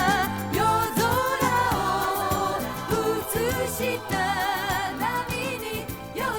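Late-1970s Japanese pop music playing: a wavering melody line with vibrato over steady bass and percussion, with no words.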